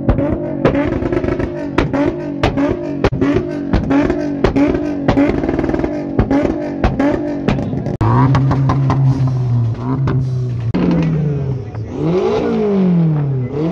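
Nissan 350Z's V6 held at high revs on the limiter, its exhaust banging about twice a second as it throws flames. About eight seconds in, a different car's engine is held at a steady rev, then revved up and down several times.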